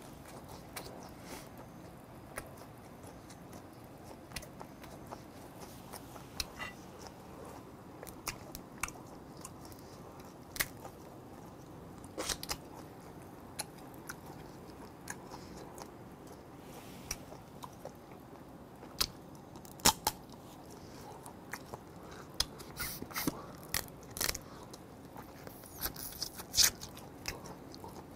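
Close-up chewing and biting of steamed male blue crab, with many short sharp cracks and clicks of shell scattered throughout, the loudest about two-thirds of the way in and near the end.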